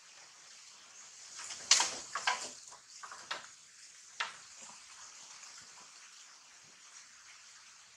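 Short bursts of rustling and snapping leaves and branches as a monkey climbs through the tree, the loudest about two seconds in, with a few more over the next two seconds above a steady faint hiss.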